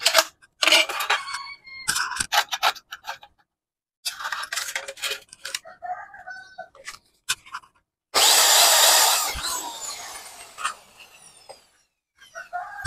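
Aluminium box profiles and spigot connectors being handled on a concrete floor and a wooden block, making scattered metal clicks, knocks and scrapes. About eight seconds in there is one loud scraping clatter that fades out over about two seconds.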